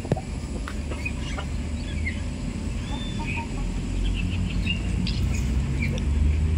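Small birds chirping in short scattered calls over a steady low rumble that grows louder near the end.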